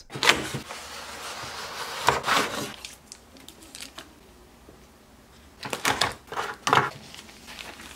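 Clear plastic clamshell box and its plastic sleeve being handled and opened: a rustling crinkle for the first few seconds, then a few sharp plastic clicks and crackles about six and seven seconds in.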